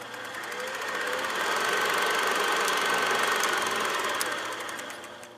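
Film projector running: a fast, even mechanical clatter over a hiss, swelling in over the first couple of seconds and fading out near the end.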